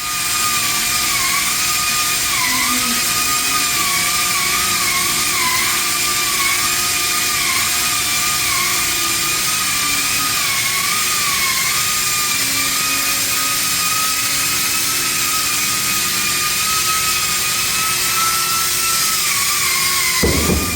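Park Industries Fusion 4045SL CNC waterjet saw running: a loud, steady hiss of spray with a high whine that dips in pitch again and again.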